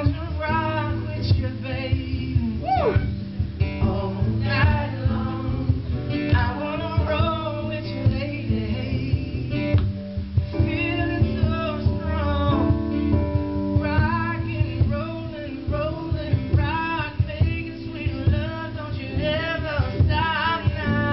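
A man singing live into a microphone over guitar accompaniment, with long wavering held notes over sustained guitar chords.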